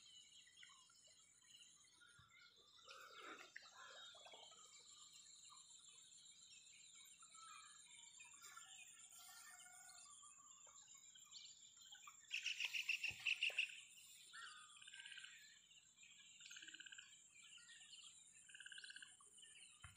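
Faint evening field ambience: a steady high insect chirring with scattered bird chirps, and one louder, rapidly pulsed bird call lasting about a second and a half, about twelve seconds in.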